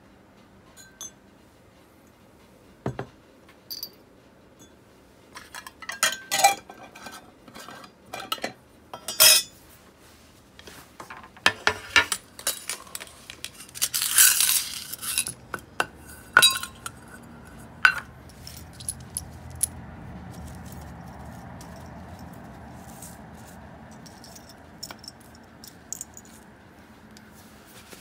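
Small metal parts of a baitcasting reel clinking and clicking as they are handled, in irregular taps, with a longer scraping rustle about halfway through and a faint steady hum in the latter part.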